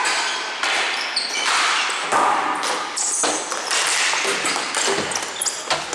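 Ball hockey in play: sticks and the plastic ball clacking and knocking in a run of sharp hits, over steady general game noise.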